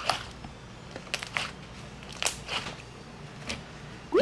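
Glittery fluffy slime being squeezed and kneaded by hand, giving irregular squishy crackles and pops every half second or so. A short rising squeak comes right at the end.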